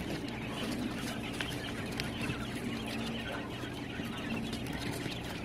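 A flock of month-old quail chicks calling, with many short, overlapping high calls scattered throughout, over a steady low hum.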